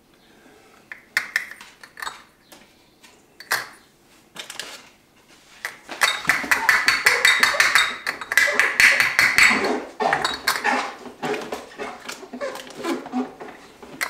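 Teaspoon and glass clinking as sugar is spooned through a small funnel into small glass bottles packed in a crate. Scattered single clinks at first, then a dense run of rapid clinks and rattles from about six to ten seconds in.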